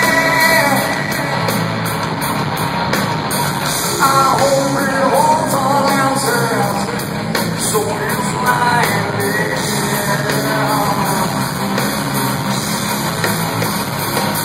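Live rock band playing: a lead vocalist sings over electric guitars and drums, heard from the audience in a large hall.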